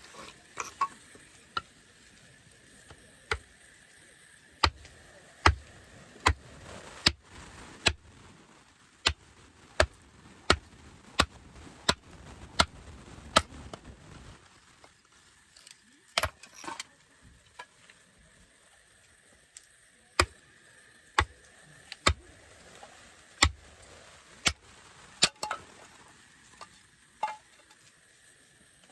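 A series of sharp knocks, struck in runs with short pauses: a steady run of about one knock every 0.7 seconds in the middle, then more spaced knocks after a pause.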